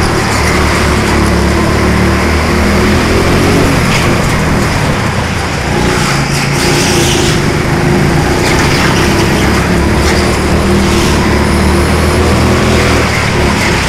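Four-stroke petrol go-kart engine running at speed, heard close from the kart itself, its note dropping briefly and picking up again.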